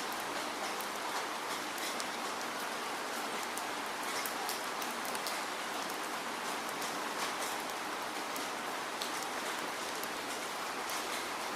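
Steady rain falling, a continuous hiss with many individual drops pattering and ticking on a surface.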